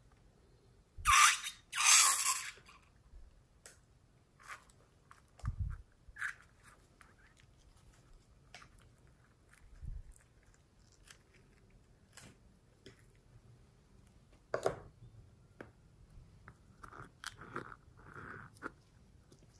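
Close-up handling of slime-filled rubber balloons: one is cut open, squeezed and peeled, with squelching, crinkling and scattered small taps and clicks. The loudest sounds are two noisy rushes just over a second in.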